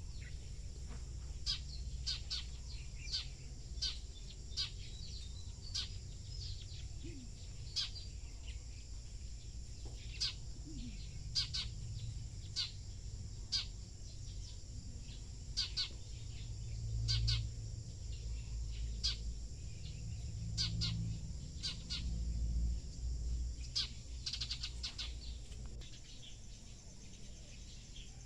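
Small birds chirping, short sharp calls repeating every half second to a second, over a steady high hiss and a low rumble.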